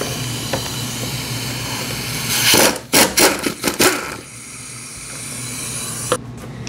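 Impact wrench hammering in several short bursts, from about two and a half to four seconds in, loosening a stubborn 10 mm bolt on the car's A/C line. A steady hiss runs under it before the bursts.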